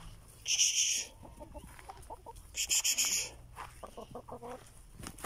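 Domestic hens clucking in short soft notes, with two brief hissing sounds, about half a second and three seconds in, that are the loudest things heard.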